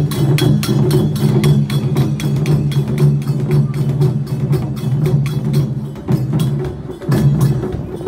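Music with a fast, steady clicking percussion beat over sustained low tones, briefly dropping out about six and seven seconds in.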